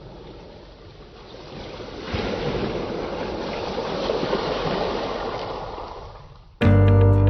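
Ocean surf washing in: a rush of waves that swells about two seconds in and then fades away. Guitar music starts abruptly near the end.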